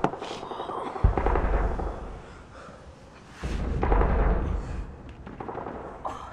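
Two deep booms about two and a half seconds apart, each rumbling on for about a second.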